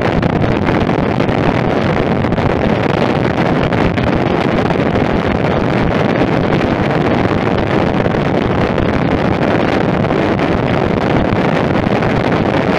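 Royal Enfield Meteor 350 cruising at road speed: a steady rush of wind over the microphone, with the bike's 349 cc single-cylinder engine and tyre noise running underneath.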